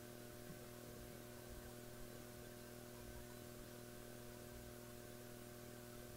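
Near silence: a faint, steady electrical hum with an even hiss underneath.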